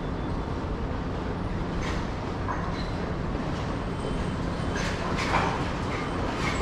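Train running with a steady low rumble and hum, with a few light knocks and clicks over it around the middle.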